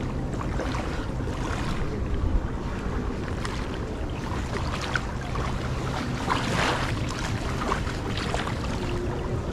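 Wind buffeting the microphone by a river, with water washing and lapping in surges over a steady low rumble.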